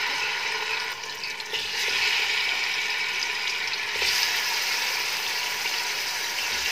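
Raw chicken pieces sizzling as they are dropped by hand into hot ghee in a pot: a steady frying hiss that grows louder about two seconds in and briefly again at four seconds as more pieces go in.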